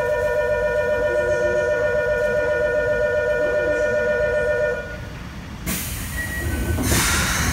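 Electronic platform departure bell ringing with a steady trilling tone, cutting off sharply about five seconds in. A loud rush of noise follows near the end.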